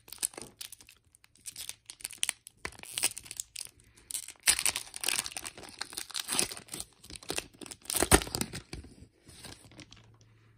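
Foil wrapper of a Donruss football card pack being torn open and crinkled as the cards are pulled out: a run of crackling tears and crinkles, loudest about halfway and again near eight seconds in, dying away over the last second.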